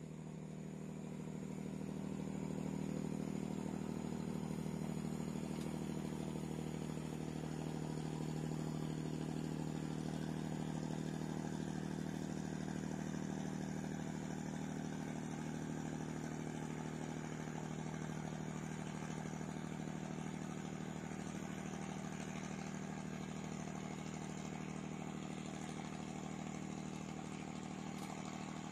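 A boat engine running steadily: a low, even drone that swells over the first few seconds and eases slightly near the end.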